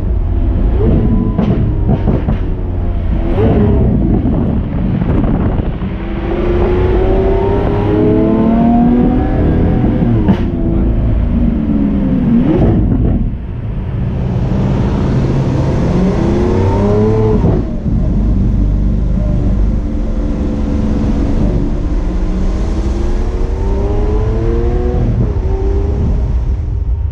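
Lamborghini Aventador S 6.5-litre V12 accelerating hard through the gears: the engine note climbs in pitch, then drops sharply at each upshift, twice in the middle. Near the end it settles into a steadier, slowly rising drone.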